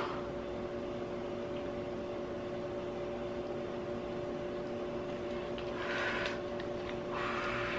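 Steady machine hum holding two constant tones, such as a running room appliance gives. Two brief soft hissy sounds come near the end.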